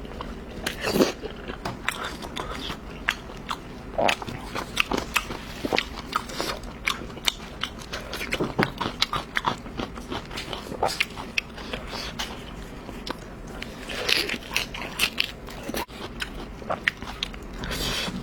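Close-miked eating sounds: a person biting and chewing food, with many short wet mouth clicks and smacks throughout.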